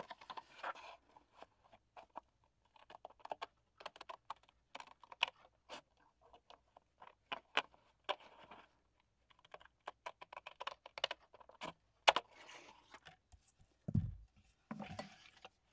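Scissors snipping through kraft file-folder card: an irregular run of crisp clicking cuts with light paper rustle. A low thump near the end as the cut pieces are laid down on the glass mat.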